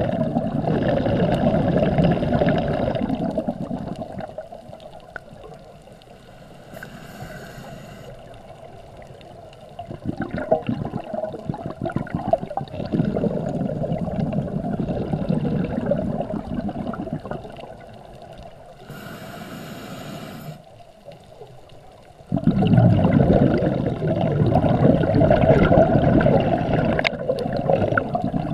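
Scuba diver breathing through a regulator underwater: three long rushes of exhaled bubbles, and in each gap between them a short hiss of an inhalation through the regulator.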